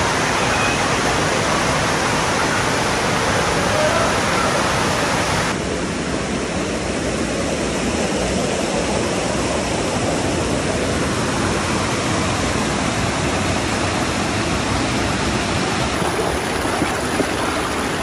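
Fast creek water rushing and splashing over rocks in a narrow cascade: a loud, steady rush that drops a little in level about five seconds in.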